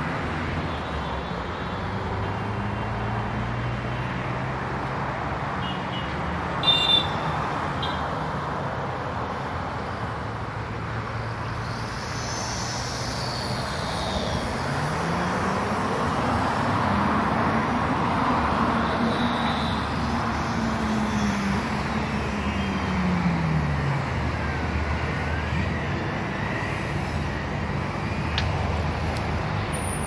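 Steady city road traffic hum, with one vehicle's engine note rising and then falling over several seconds past the middle. A short, sharp noise about seven seconds in is the loudest moment.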